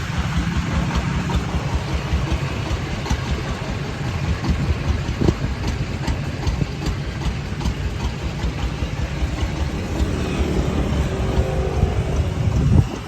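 Công nông farm truck's single-cylinder diesel engine running steadily, with a rapid, even pulsing.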